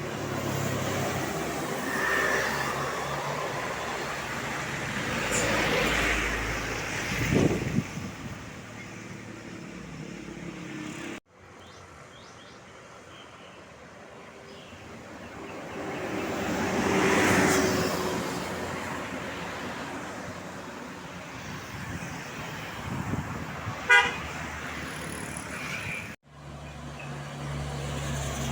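Tour buses driving past on a road with traffic, the noise swelling as each bus passes, and Indonesian 'telolet' bus horns tooting. The sound breaks off abruptly twice.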